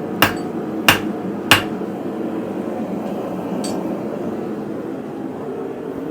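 Hammer striking hot steel on an anvil three times, about two-thirds of a second apart, drawing the end of a bar out to a point. A steady hum runs underneath.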